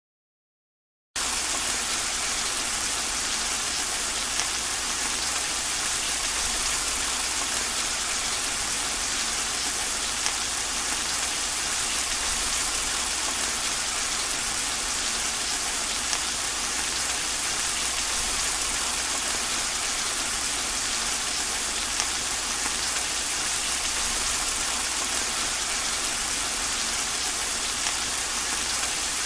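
Steady, even rushing sound of falling water, starting abruptly about a second in after total silence.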